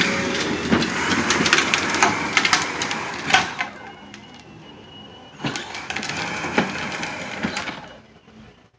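Power Wheels Mustang ride-on toy car driving, its electric drive and bike-tire-wrapped wheels rolling over the ground in a rough noise full of clicks and crackles. It comes in two spells, the second starting about five and a half seconds in, with a faint steady whine between them, and fades near the end.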